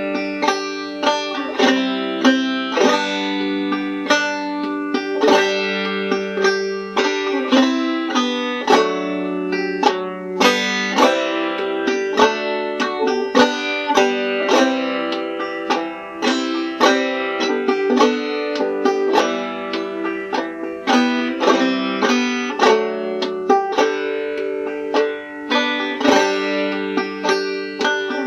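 Five-string banjo played clawhammer style in open G tuning (gDGBD): a slow tune in G picked as a steady run of notes over a ringing drone.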